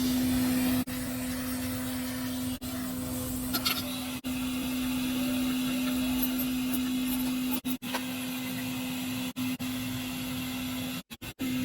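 A small electric motor or blower running with a steady hum and a hiss over it. The sound is broken by several very short gaps.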